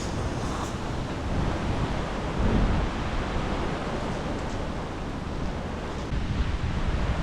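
Storm wind gusting against the microphone: a low rushing noise that swells about two and a half seconds in and again near the end.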